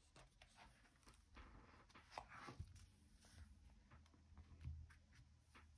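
Near silence, with a few faint soft taps and rustles from a paperback picture book being closed on a wooden table.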